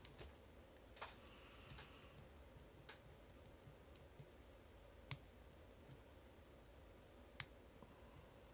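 Sparse, faint metallic clicks of a lock pick and tension wrench working the spool pins of a Master Lock Pro Series 931D padlock. The sharpest click comes about five seconds in, another a little after seven.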